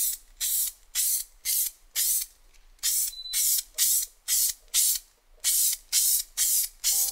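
Aerosol rattle can spraying primer in short bursts of hiss, about two a second, with a brief pause about five seconds in.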